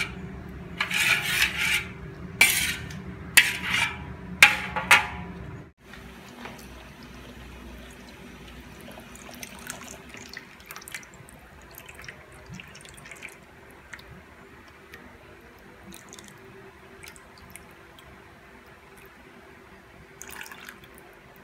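A spoon scraping and stirring thick tomato sauce in a metal wok, about four strokes in the first five seconds. Then quieter liquid sounds and small scattered ticks as evaporated milk is poured into the sauce, over a steady low hum, with one more brief stir near the end.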